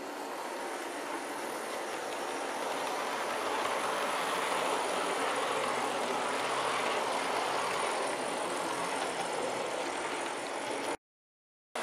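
Rapido OO gauge APT-E model train running past on the layout's track, a steady rumble of wheels on rail and motor that swells as it passes and then cuts off abruptly near the end.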